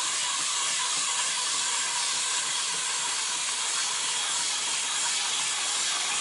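Steady, even hiss with no rhythm or clicks.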